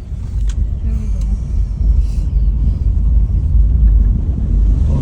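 Low rumble of a moving car, engine and road noise heard from inside, swelling over the first couple of seconds and then holding steady.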